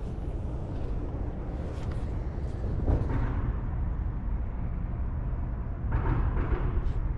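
Steady low rumble of distant city traffic, with faint brief rustles about three seconds in and again near the end.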